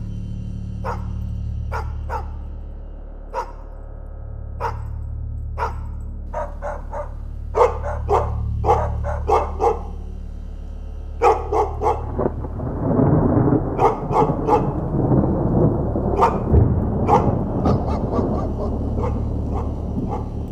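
Dogs barking again and again, singly and in quick runs, over a steady low drone. From about twelve seconds in, a dense low rumbling rises beneath the barking.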